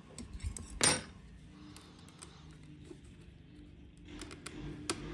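Small metal parts and hand tools clinking and clicking while an RC truck's axle assembly is worked on by hand: one louder clink about a second in, then a few lighter clicks near the end.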